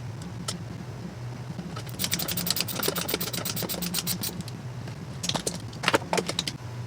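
Metal drawer-slide rail hardware being worked by hand: a quick run of small clicks and rattles starting about two seconds in, then a few sharper clicks near the end, over a steady low hum.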